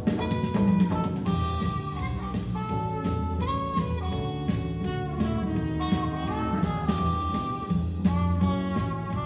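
Jazz music with a horn carrying the melody in held notes over bass and a drum kit.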